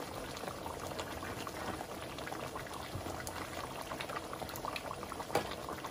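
A pot of beef ragu stew simmering on the stove: a steady bubbling with many small pops.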